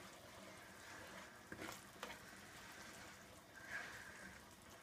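Faint simmering sizzle of tomato sauce and white wine in a nonstick frying pan, stirred with a plastic spoon that gives a couple of soft clicks against the pan about a second and a half and two seconds in.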